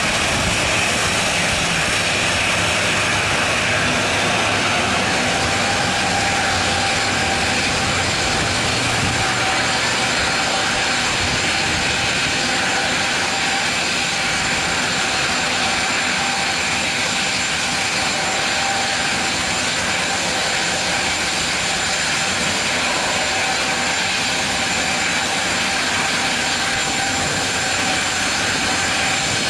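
Boeing 777-200's twin jet engines running at taxi power as it moves onto the runway before departure: a steady jet whine over a rushing noise.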